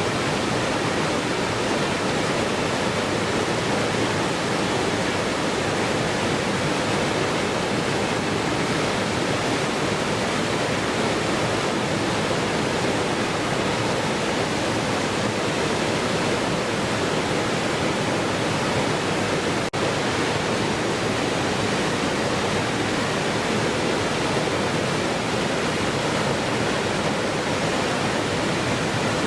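Waterfall rushing in a steady, unbroken hiss, with a split-second dropout about two-thirds of the way through.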